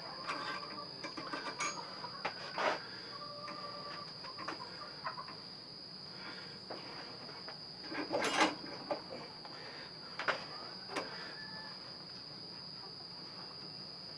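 Scattered metal clicks and knocks from a 330 Conibear trap being handled in a bench vise, the loudest about eight seconds in, over a steady high-pitched insect trill.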